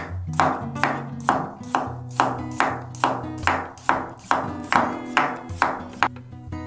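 Santoku knife slicing garlic cloves thin on an end-grain wooden cutting board: about fourteen even strokes, roughly two a second, each a sharp tap of the blade on the wood, stopping about six seconds in. Acoustic guitar music plays underneath.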